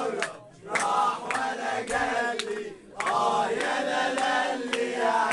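A group of people singing or chanting together in unison, with rhythmic hand claps about three a second. The singing breaks briefly between phrases twice.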